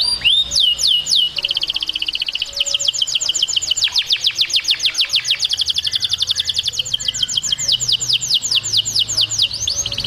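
Domestic canary singing: a few sweeping whistled notes, then a long, fast trill of repeated falling notes that slows slightly near the end.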